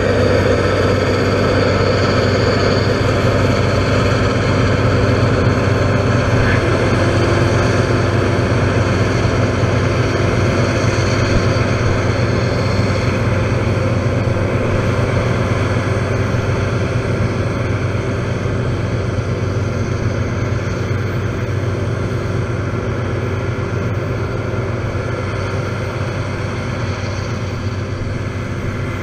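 Claas Lexion 670 TT combine harvester and Fendt 939 tractor with a chaser bin running side by side while the combine harvests and unloads grain on the move: a steady, heavy engine drone that fades slowly as the machines pull away.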